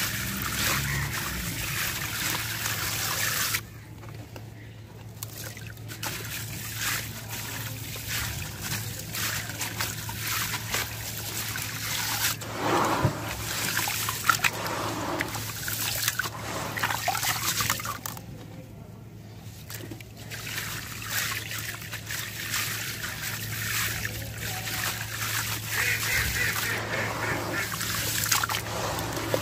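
Hands crumbling a gritty sand chunk into a tub of muddy water: grains trickling and splashing into the water, then the wet grit squeezed and stirred through the water by hand. The crackly, watery sound eases off twice, briefly.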